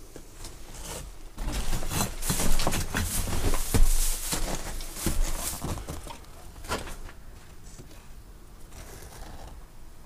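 Footsteps crunching and rustling over brick rubble and dry undergrowth, a dense run of irregular crackles that dies down about seven seconds in.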